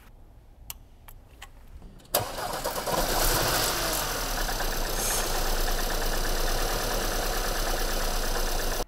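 A 2018 Porsche Macan's 2.0-litre turbocharged four-cylinder petrol engine starts about two seconds in, after a few faint clicks, and then idles with a rough, unusual shake. Cylinders 3 and 4 are still misfiring even with new ignition coils fitted.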